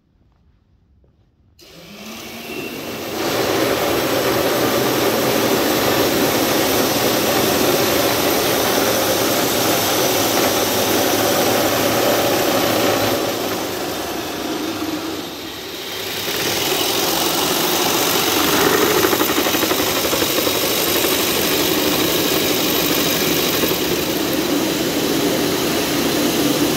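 Loud, steady mechanical running noise. It starts about a second and a half in, builds for a moment, dips briefly about halfway through, then comes back.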